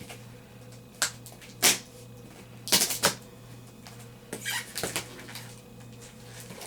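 Packaging being handled as a box is opened: scattered sharp clicks and knocks and short crinkling rustles, the busiest stretch about three seconds in, over a steady low electrical hum.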